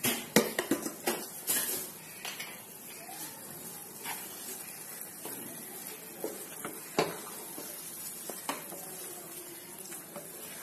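Wooden spatula stirring a thick chilli paste in a frying pan, scraping and knocking against the pan. The knocks come quickly in the first two seconds, then a few single ones, over a faint steady sizzle.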